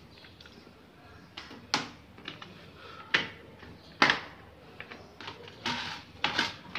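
Blue hard-plastic pet carrier being unclipped and opened by hand: a series of sharp plastic clicks and knocks, with several close together near the end as the lid comes up.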